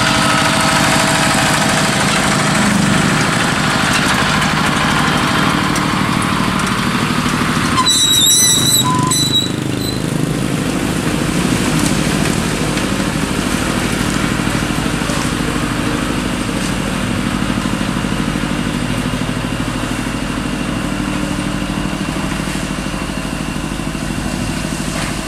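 Dump truck's diesel engine running steadily with the tipper bed raised while a load of sand and rock is tipped out. The noise is fuller for the first eight seconds or so, then eases, with a few short high chirps around eight seconds in.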